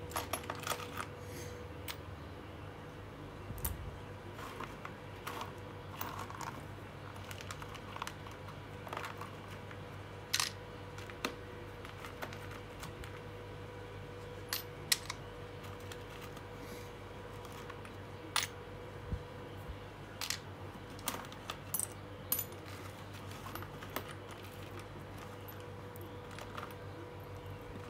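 Old metal screws clinking as they are picked out of a pile and dropped one by one into a plastic sorting tray: irregular light clicks and small rattles, over a steady background hum.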